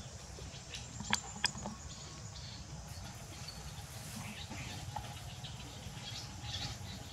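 Faint rustling and handling noises, with two sharp clicks about a second in, over a steady low background hum.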